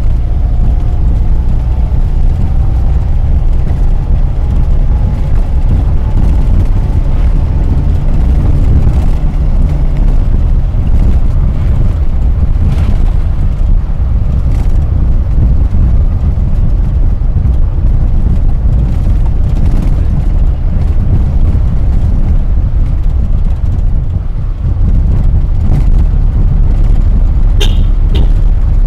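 Cabin sound of a 1984 Daihatsu Hijet 1000 driving along: its small three-cylinder engine running under road and wind noise, a steady low rumble. A faint whine rises in pitch over the first several seconds, and a couple of short sharp sounds come near the end.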